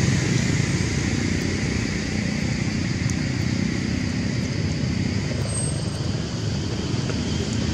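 Steady low rumbling background noise with a hiss above it, unbroken throughout.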